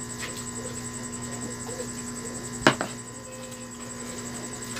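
Steady electrical mains hum, with one sharp knock a little past halfway through that stands out as the loudest sound.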